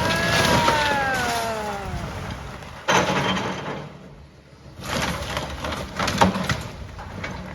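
A section of the building giving way to a demolition backhoe: a creak that falls in pitch over about two seconds, then a sudden crash about three seconds in. More crashes of falling debris follow about a second and two seconds later.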